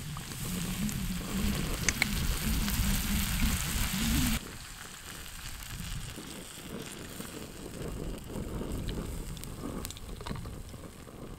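Food sizzling in a pan on a camping stove, under a steady low roar for the first four seconds. The roar then cuts off abruptly, and water poured from a bottle into the hot pan splashes and sizzles.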